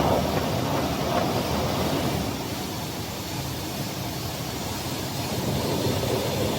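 Horizontal four-sided CNC glass seaming machine running, a steady rushing grinding noise as it works the glass edges.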